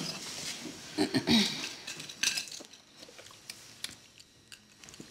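Scattered small clicks and clinks of eating at a dinner table: boiled crayfish shells being cracked and picked apart by hand, with plates and cutlery clinking now and then.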